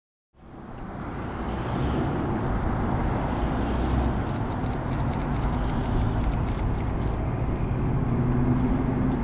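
City street ambience with a steady rumble of traffic, fading in over the first couple of seconds. A quick run of light, high ticks sounds for about three seconds in the middle.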